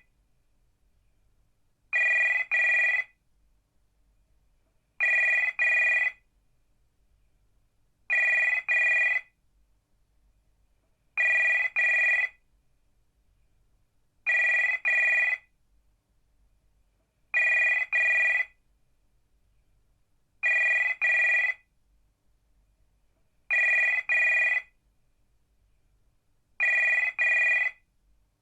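Telephone ringing in a double-ring pattern: two short rings close together, then a pause of about two seconds, repeating steadily about every three seconds, nine times.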